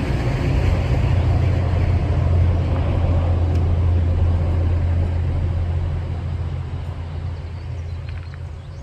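Passing diesel train with a steady low engine drone and rolling noise, fading away over the last few seconds as it moves off.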